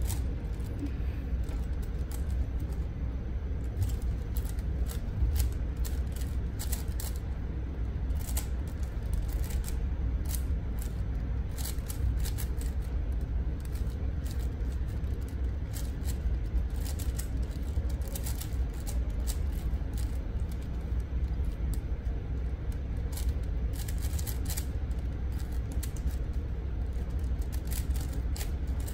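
Plastic 5x5 Rubik's cube being turned quickly by hand, its layers clicking and scraping in irregular rapid runs, over a steady low hum.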